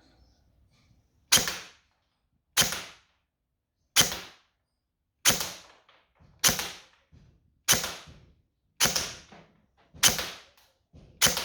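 Airsoft electric gun firing 0.20 g BBs in single shots: nine sharp cracks at an even pace of about one every 1.2 seconds, each with a short fading tail, fired to show shot-to-shot consistency.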